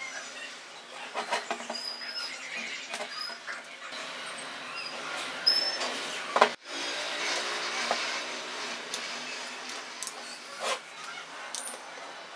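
Steel machine parts handled on a metal bench top: a gear-and-shaft assembly turned over in the hands, with scattered clinks, knocks and rubbing of metal on metal.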